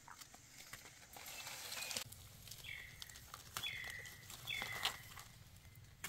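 Rustling in dry leaf litter that stops sharply, then a bird calls three times about a second apart, each a short note dropping in pitch and levelling off. A sharp click comes just after the last call.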